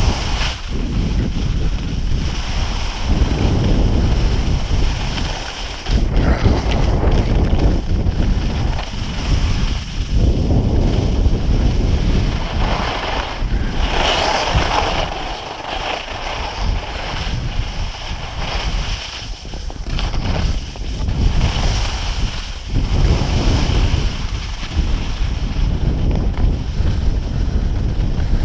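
Heavy wind buffeting the microphone of a skier's action camera at speed, over the hiss and scrape of skis on groomed snow. The noise swells and eases with the turns, with a harsher scrape about halfway through.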